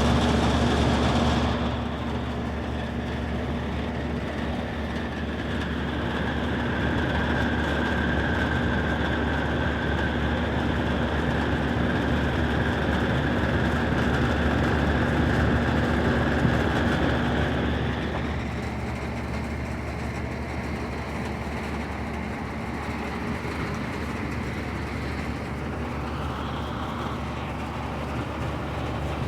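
Outdoor heat pump unit running: a steady mechanical hum and fan noise with a steady whine that drops away about two-thirds of the way through, leaving the lower hum.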